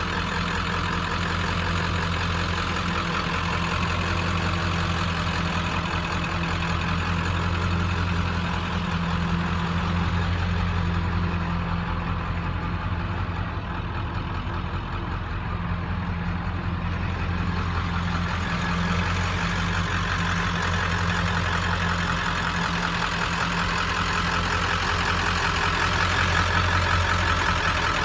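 1996 Ford F-350's 7.3 L Powerstroke turbo-diesel V8 idling steadily.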